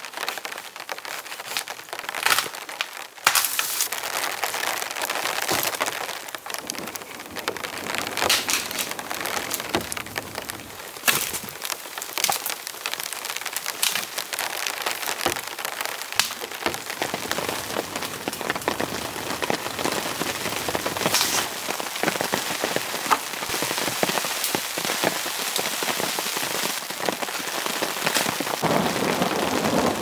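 Heavy rain falling, a steady hiss with many sharp, scattered taps of drops landing close by.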